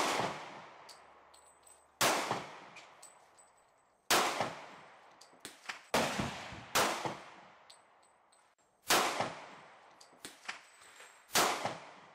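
Pistol shots, about seven loud ones roughly two seconds apart, each followed by a ringing echo that dies away, with a few fainter shots in between.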